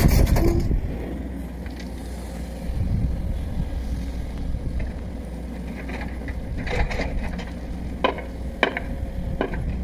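Hydraulic excavator running with a steady low engine rumble. In the second half come several sharp knocks and clatters as the bucket sets gravel into the gap behind the wall.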